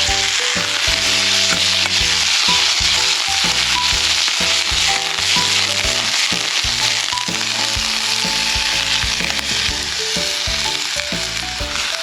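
Bitter melon stir-fry sizzling steadily in an iron wok, with background music playing underneath.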